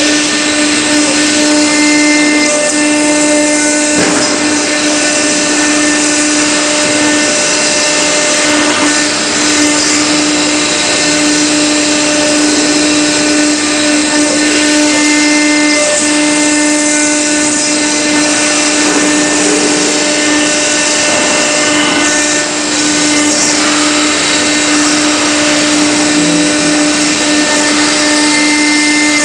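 Stone-engraving CNC router spindle running steadily, its bit grinding a relief into a marble slab under a water coolant spray: a constant whine over a hissing grind.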